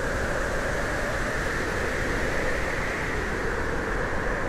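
Strong typhoon wind blowing steadily: a continuous rushing noise that neither gusts up nor dies away.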